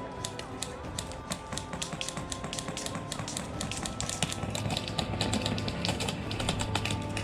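Background music with a dense, irregular run of sharp clicks from airsoft guns firing.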